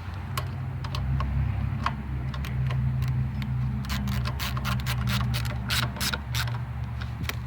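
A ratchet wrench clicking in short runs as bolts on the generator are tightened, over a low steady hum.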